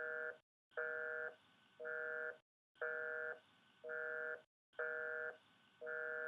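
Telephone line tone like a busy signal: a steady chord of a few notes beeping on and off about once a second, seven beeps in all.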